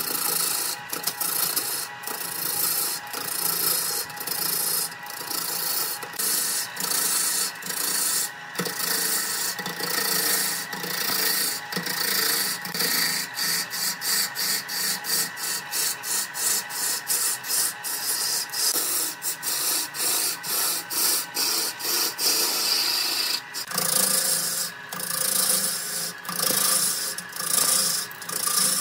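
Wood lathe turning a cylinder of stacked wooden discs, a steel turning tool scraping and peeling shavings off the spinning wood. It makes a loud, rough hiss, broken by many short breaks as the tool bites and eases off.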